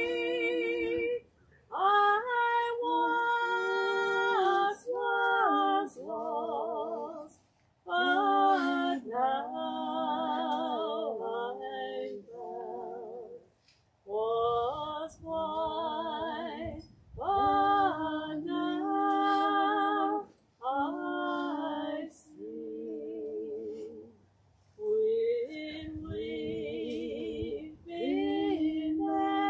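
A woman singing a slow song solo: long held notes with a wide vibrato, in phrases broken by short pauses.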